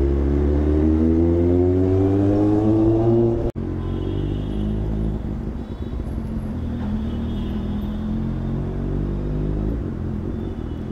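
Kawasaki superbike's inline-four engine accelerating, its note rising steadily for about three and a half seconds. After a sudden break it runs at a lower, steadier and quieter note, rolling slowly in traffic.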